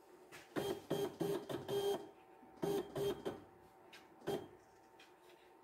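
CNC router's stepper motors jogging the Z axis down in short steps while zeroing the tool tip: about seven brief whirs, clustered in the first two seconds and then more spaced out.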